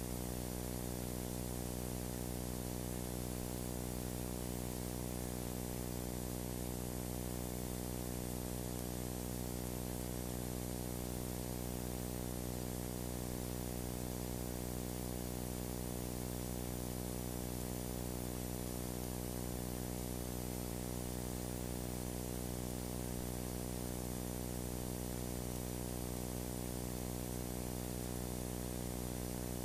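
Steady electrical buzz: mains hum with a stack of overtones under a layer of static hiss.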